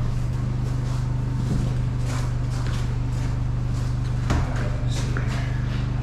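Footsteps and scattered knocks as people carry bed frame pieces across a room, over a steady low hum, with a sharper knock about four seconds in.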